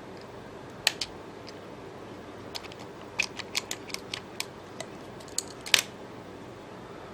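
Scattered sharp clicks and taps of a small tool and plastic and metal parts as the LG Optimus G Pro's main board is unclipped and lifted out of the phone.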